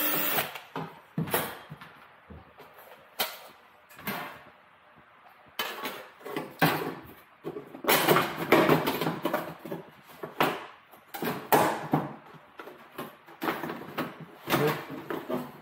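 Thin sheet metal duct pieces being handled and worked by hand: irregular knocks, taps and scraping of metal, sparse at first and busier in the second half. A steady machine noise cuts off right at the start.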